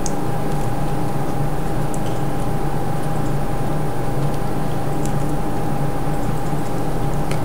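Steady low hum and hiss with a faint steady tone running through it, the background noise of the recording. A few faint light clicks sound over it as the earphones' plastic packaging is handled.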